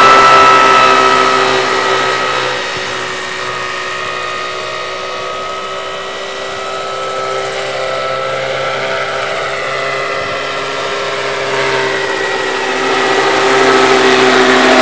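Radio-controlled scale MD-500 (OH-6 Little Bird) model helicopter in flight: a steady whine of motor and rotors, loud at first, fading through the middle and growing louder again near the end as it comes back close.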